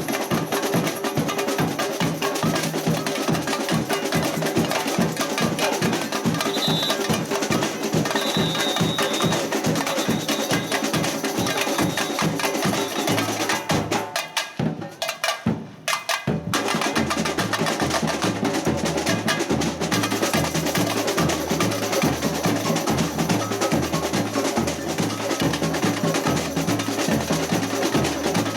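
Samba percussion ensemble playing a fast batucada rhythm of bass drums, snare and wood-block-like strokes. About halfway through the drums stop almost completely for about two seconds, then come back in with a deep, alternating bass-drum beat.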